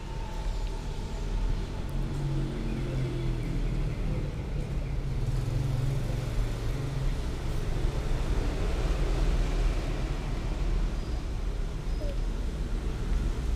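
Low engine rumble that builds about a second and a half in and fades away around seven seconds in, over a steady low hum.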